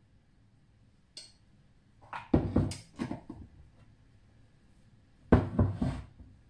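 Kitchen containers being handled and set down on a worktop: a brief scrape about a second in, then clattering knocks about two seconds in and again near the end.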